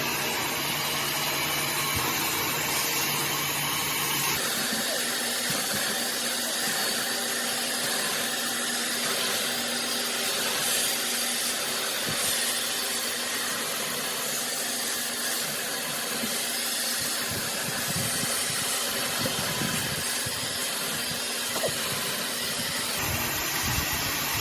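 New vacuum cleaner running steadily, switched on to test that it works. About four seconds in, its low hum gives way to a broader rushing noise, with a few light knocks later.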